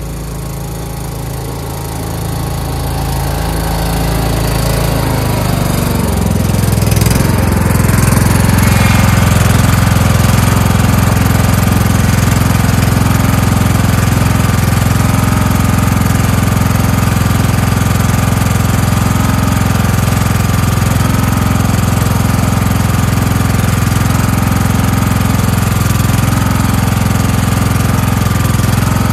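Craftsman lawn tractor's engine running. It grows louder over the first several seconds as the tractor drives up close, then runs steadily at a constant speed.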